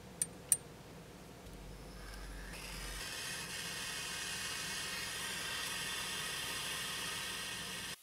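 Two light clinks of metal tweezers against a small glass jar, then a small hand-held gas torch is lit and its flame hisses steadily. The flame is heating a pure 24k gold ring on a charcoal block to fuse its seam without solder.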